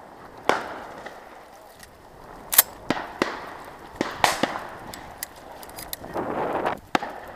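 Shotgun shots at varying distances, irregularly spaced, with the two loudest about two and a half and four seconds in and several fainter reports between them. A short rushing noise comes near the end.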